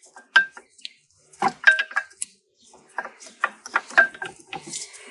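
Sharp metal clinks and scrapes as brake pads are worked out of a six-piston Brembo caliper, their steel backing plates knocking against the caliper. Several of the clinks ring briefly.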